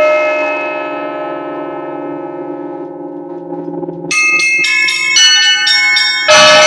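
Russian Orthodox church bells. A struck chord of bells dies away for about four seconds, leaving the low hum of the big bell. Then quick strokes of the small bells start again, and near the end a loud stroke brings in the big bell.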